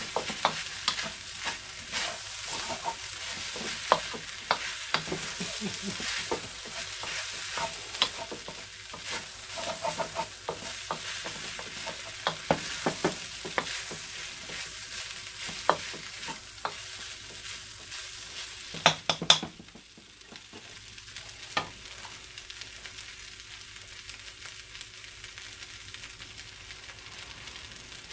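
Fried rice with chicken and shrimp sizzling in a wok while a wooden spatula stirs and scrapes it, with frequent knocks against the pan. About two-thirds of the way in, a few sharp knocks end the stirring and only a quieter, steady sizzle remains.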